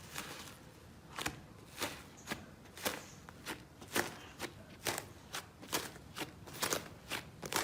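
Slime being squeezed and worked by hand, giving a series of irregular sharp clicks and pops, about two a second.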